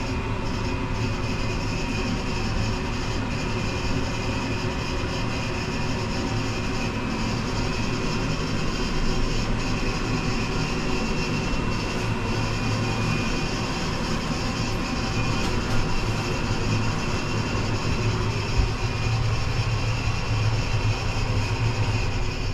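Steady mechanical hum and rumble of a turning Ferris wheel, heard from inside its enclosed gondola, with a low drone and a few faint steady higher tones.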